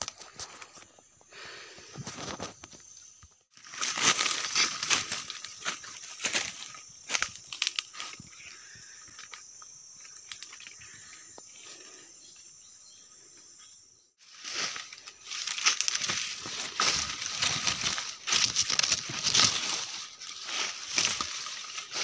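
Footsteps crunching through dry leaf litter and twigs and brushing past undergrowth, in two stretches of loud crackling rustle with a quieter lull between them.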